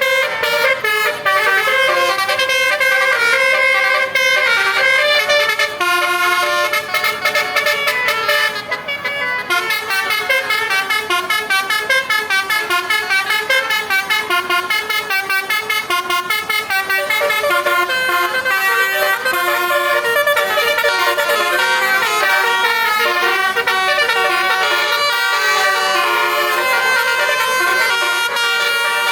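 Indonesian "telolet" multi-tone musical bus horn playing melodic jingles, notes stepping quickly up and down in pitch, with a brief break about nine seconds in, followed by choppier, faster notes.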